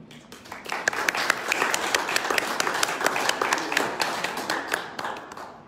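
A small audience applauding, with individual claps standing out. The applause builds within the first second and dies away near the end.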